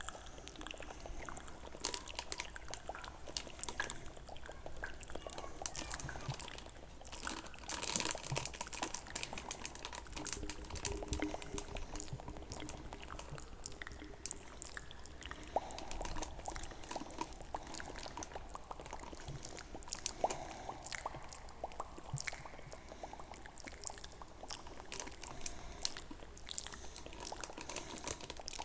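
Kinetic sand being handled and let fall, a dense run of fine, irregular crackles and soft crunches.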